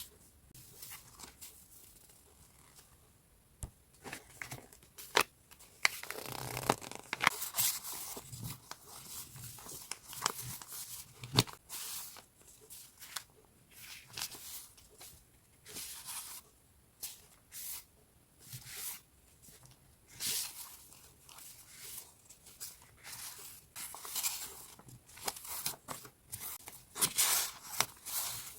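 Paper scrapbooking supplies being handled and leafed through: irregular rustling and crinkling swishes of paper, with a few sharp light taps.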